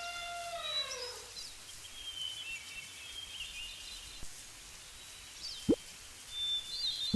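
Faint bird chirps over soft outdoor background ambience, with a falling pitched tone dying away in the first second and two short rising plop sounds near the end.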